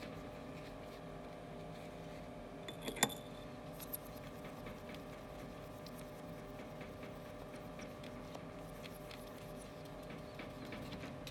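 Quiet handling of an iPhone LCD panel in a metal mould on a stainless steel bench as it is wiped with a melamine sponge: faint rubbing and scattered light ticks, with one sharper click about three seconds in, over a steady low hum.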